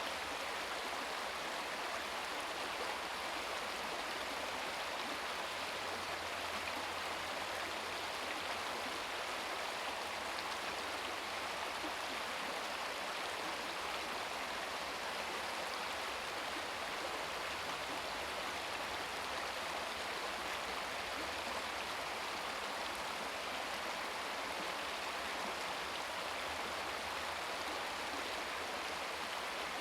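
Small brook babbling over rocks: a steady rush of running water with no pauses or changes.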